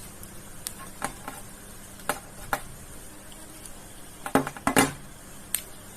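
Hands working the stripped end of a UTP network cable, untwisting and straightening the wire pairs: scattered small clicks and rustles, with a louder cluster of clicks a little after four seconds in.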